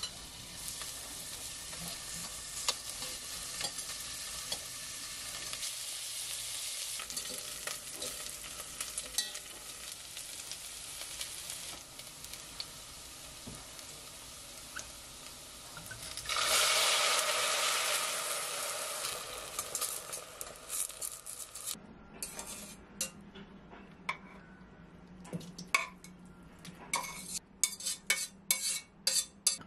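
Onion and carrot pieces sizzling in oil in a stainless steel stockpot as they brown; the sizzle swells loudly for a few seconds just past the middle. Then the sizzling stops, and a spatula knocks and scrapes against the pot in a run of sharp clicks near the end as the vegetables are tipped into a glass bowl.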